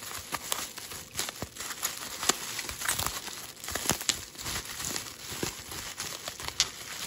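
Plastic bubble wrap crinkling and crackling as hands unwrap it, with many small sharp crackles.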